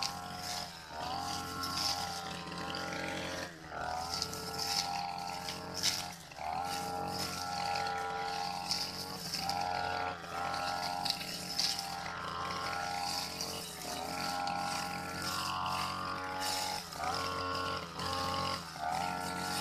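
Backpack brush cutter's small engine running at high revs while its blade cuts grass. Its pitch dips briefly and climbs back every one to three seconds, more often near the end, as the throttle is eased and reopened.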